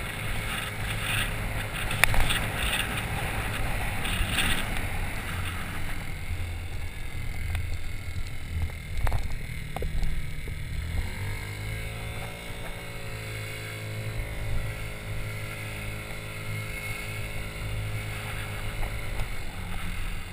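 Small scooter engine running steadily on the move, a low hum underneath with wind noise on the microphone. About halfway through a higher engine note rises and then holds steady until near the end.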